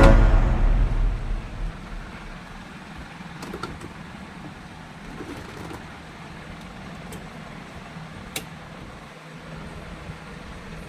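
Washing machine running with a steady low hum and a couple of faint clicks, as background music fades out at the start.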